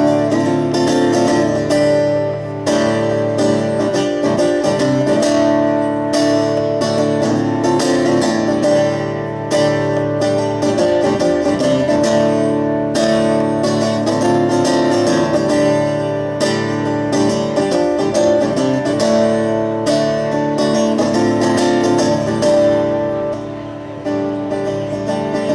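Guitar being strummed in the instrumental opening of a live song, before the vocals come in.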